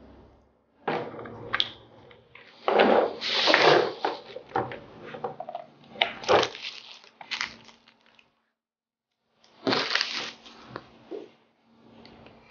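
Clear plastic packaging bags crinkling and rustling as tattoo kit parts are handled and unwrapped, in irregular bursts. The bursts are loudest a few seconds in, break off briefly, then come back once more.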